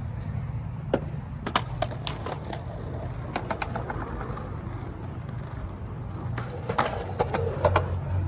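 Skateboards in a skatepark session: a steady rolling rumble of wheels with a string of sharp clacks and knocks from boards popping, flipping and landing, the clacks coming in clusters early on, in the middle and near the end.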